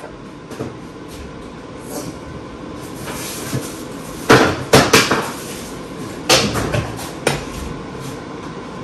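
Kitchen cupboard opened and cookware knocking together as it is handled. There is a cluster of sharp clatters about four to five seconds in and single knocks around six and seven seconds, over a steady background hum.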